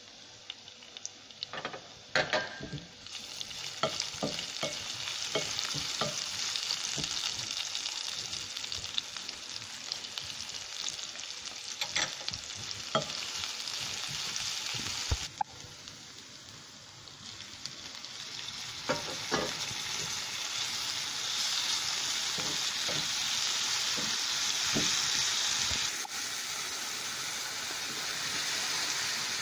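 Garlic, onion and tomato frying in oil in a nonstick pan, a steady sizzle, with a wooden spatula scraping and clicking against the pan as it is stirred. The sizzle drops suddenly about halfway through, then builds back up.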